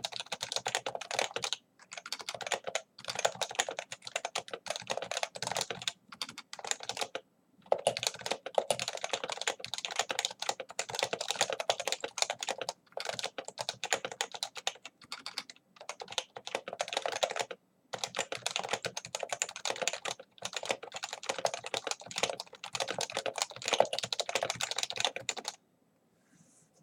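Fast, continuous typing on a computer keyboard, in runs of keystrokes broken by short pauses. The typing stops near the end.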